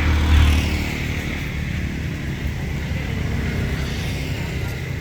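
A motor vehicle engine running, a steady low rumble that is loudest in the first second.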